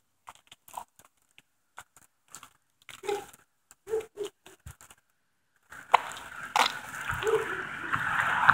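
Footsteps scuffing and crunching on gritty asphalt, in irregular short crunches. About six seconds in, a steady rushing noise with a low hum starts and grows steadily louder.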